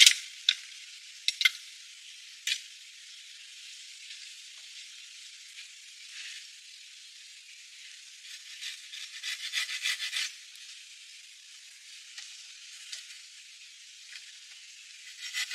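A few sharp knocks of stone on stone in the first couple of seconds, then a run of scratchy scraping and rustling around the middle as a wooden pole is handled among logs and leaf litter, over a steady faint hiss.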